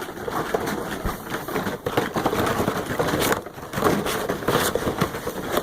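A dense, continuous clatter with many sharp clicks and a few louder surges, made as a homemade sound effect of railway rolling stock clattering.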